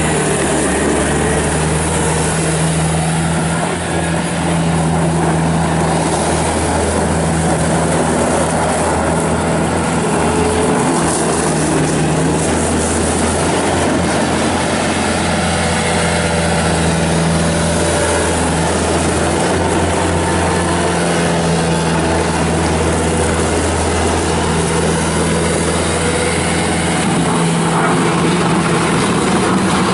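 2007 Bobcat S330 skid steer loader's diesel engine running steadily while the machine is driven and operated, its note shifting slightly now and then.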